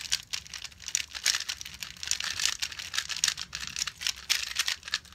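Rapid, irregular plastic clicking and clacking of GAN Air UM 3x3 speedcubes being turned fast in the hands, many layer turns a second.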